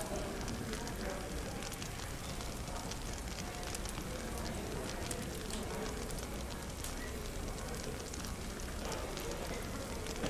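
Wood fire crackling in a fireplace, with many small sharp pops scattered irregularly, over a steady background of indistinct café chatter.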